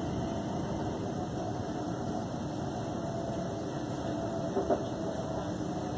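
Inside a Class 350 Desiro electric multiple unit running at speed: a steady rumble with a faint hum, and one brief knock a little over halfway through.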